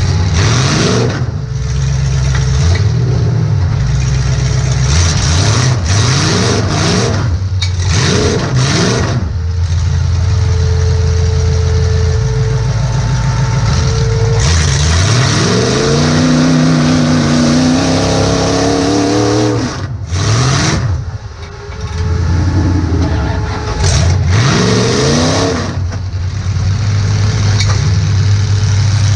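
Demolition derby car's engine heard from inside the cabin, revving up and dropping back again and again, with a long climbing rev in the middle.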